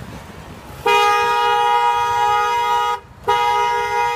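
Car horn honking: one steady blast of about two seconds, then after a brief break a second long blast that is still sounding at the end.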